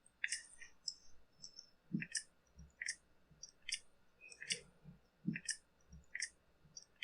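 Hand pressure-tester pump being stroked over and over, a short sharp click about once a second with soft low thuds between, pumping air into a chainsaw fuel system that won't hold pressure because air leaks out through the carburetor.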